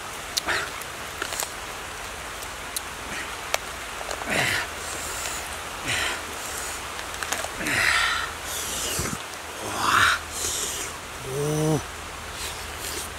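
Eating roast meat: sharp clicks and crunches of crispy skin and wet chewing and smacking noises in several bursts, with a short hummed sound near the end, over a steady hiss.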